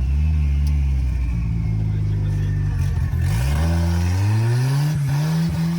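Turbocharged GM 2.0 four-cylinder engine of a BMW E36 drift car running at a steady pitch, then revving up with a rising pitch about three seconds in, as a hiss comes in over it.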